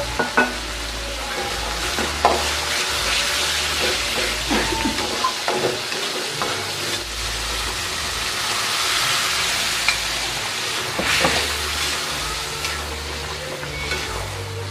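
Chili paste and sauce sizzling in a wok while a metal spatula stirs and scrapes, with sharp clicks of the spatula against the pan; about halfway through, shrimp are tipped in and stirred into the sizzling sauce.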